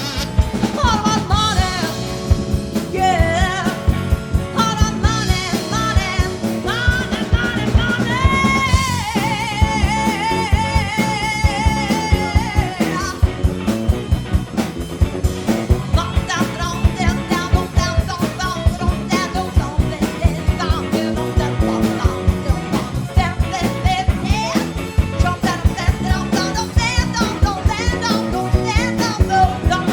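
A live blues-rock band playing: drum kit keeping a steady beat under bass and guitar, with a wavering lead melody on top that holds one long note for a few seconds about a third of the way in.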